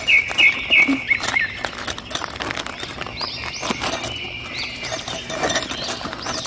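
Rustling and light clicks and knocks as a small pouch of tent stakes and hooks is opened and handled. A bird chirps in the background: four quick notes at the start, then more scattered chirps in the second half.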